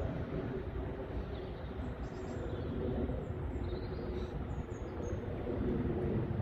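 Wind buffeting the microphone in gusts, with small birds chirping faintly now and then.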